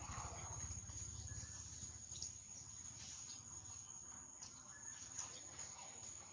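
Insects droning with one steady high-pitched tone, with faint scattered clicks over it.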